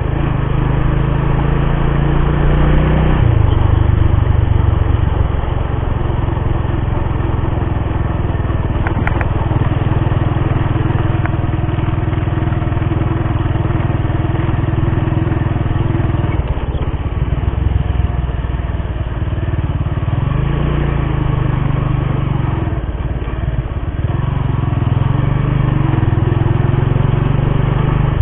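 Motorcycle engine running under way, with road noise; its pitch rises and falls several times as the throttle changes, most clearly in the second half.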